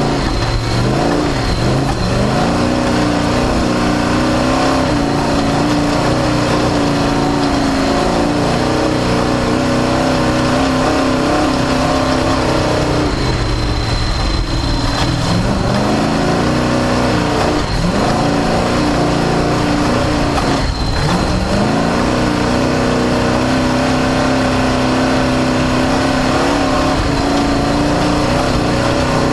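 Off-road race car's engine running hard at a steady high pitch, its tone dropping and climbing back about a second in, twice around the middle and once more past two-thirds as the throttle is lifted and reapplied. A constant broad noise runs under it.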